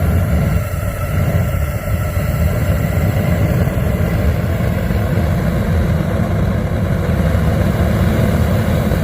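Gas forge burner running, a loud, steady low rushing noise that fades away near the end.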